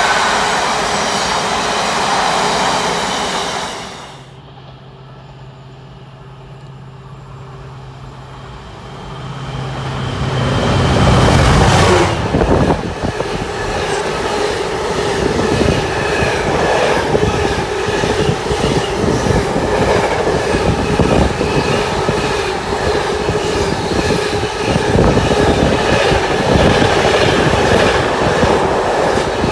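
Container freight trains passing. The first goes by for a few seconds and breaks off. Then a low steady hum grows louder as the next train approaches, and about twelve seconds in it rushes past close by. Its container wagons clatter over the rail joints, with a steady ringing from the wheels on the rails.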